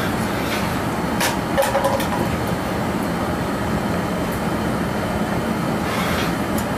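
Steady loud noise of a glass studio's gas-fired furnace and its combustion blower running. A few light metal clicks come about a second in and again near the end, from the blowpipe rolling on the steel bench rails.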